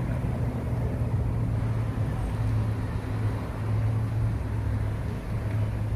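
Street traffic noise with a steady low engine hum that holds one pitch throughout.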